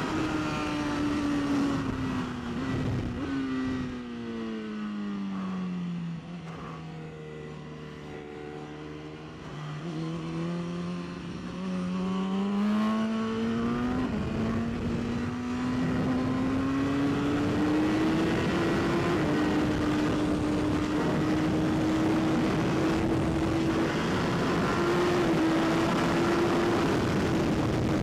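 BMW S1000RR race bike's inline-four engine heard onboard at racing speed. The revs fall to about half over several seconds, hold low briefly, then climb back and run high and steady for the rest, as when the bike slows for a tight corner and then accelerates out. Wind noise runs underneath.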